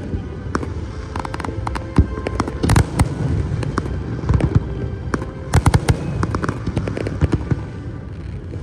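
Fireworks display: a steady run of sharp bangs from bursting shells over a low rumble, with quick clusters of rapid-fire bangs about a third and two-thirds of the way through.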